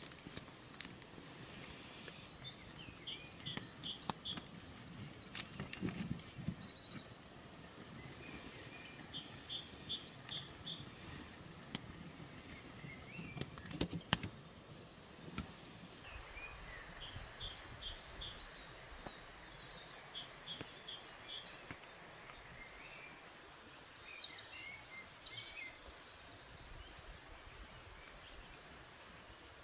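Woodland birdsong: a songbird repeating a short phrase of rapid high notes four times, with other birds chirping near the end, over a faint steady background. A few sharp knocks sound, the clearest about halfway through.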